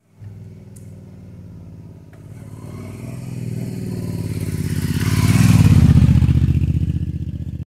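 Cruiser-style motorcycle engine running as the bike rides up and passes close by, with a steady pulsing beat. It grows louder to a peak about two thirds of the way through, then cuts off suddenly at the end.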